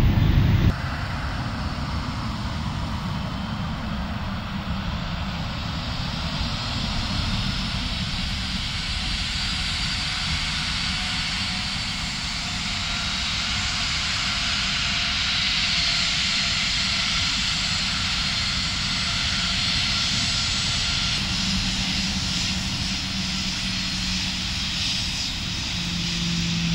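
Boeing 737 airliner's twin jet engines running as it rolls on the ground: a steady rushing whine, strongest in the high range, swelling gently. A low steady hum joins in during the last few seconds.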